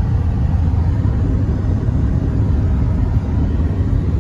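Steady low rumble of road and engine noise inside a moving car's cabin while driving at cruising speed.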